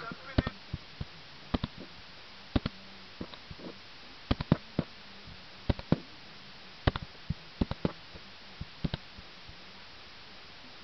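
Computer mouse clicking: about a dozen short, sharp clicks at irregular intervals, several in quick pairs like double-clicks, over a faint steady hum, with one loud click at the very end.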